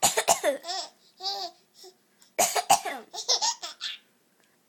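An 11-year-old girl coughs twice, sharply, and a 4-month-old baby answers with a run of squealing laughs. This happens again about two and a half seconds in.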